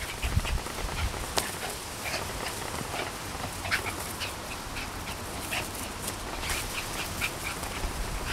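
Two small dogs yipping in rough play, many short, high-pitched yelps in quick irregular succession.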